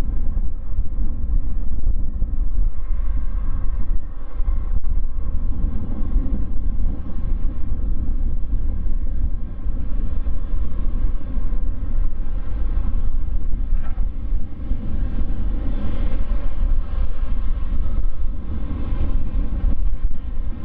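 Boeing 777-200 Freighter's twin GE90 turbofans at low taxi power as the jet rolls slowly along the runway: a steady low rumble with faint steady whining tones above it.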